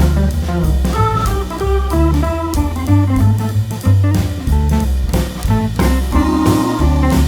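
Background music: an upbeat jazz instrumental with drum kit, bass and guitar, over a steady beat.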